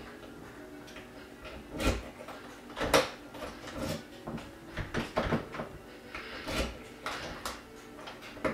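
Irregular knocks and clicks from hands working on a door and its deadbolt lock hardware, a light hit every second or so.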